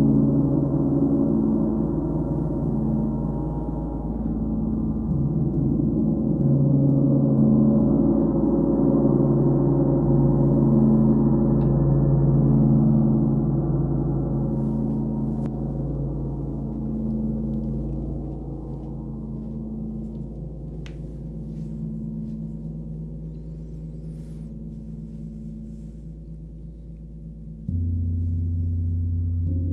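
Large gongs played with soft mallets, ringing with a slow pulsing shimmer. The sound swells again about six seconds in, then slowly dies away. Near the end a deeper gong comes in suddenly with a soft stroke and keeps ringing.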